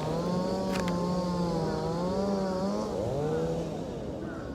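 An engine running, its pitch drifting gently up and down, then fading near the end.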